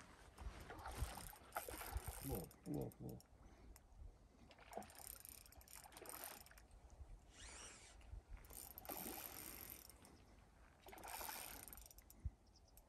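Spinning reel being cranked in short spells while a hooked fish is played on a bent spinning rod.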